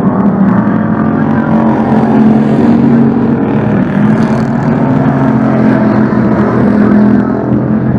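Street stock race cars' V8 engines running hard at racing speed as a pack of cars goes past on the dirt oval. The sound is loud and steady, with the pitch bending slightly as the cars pass.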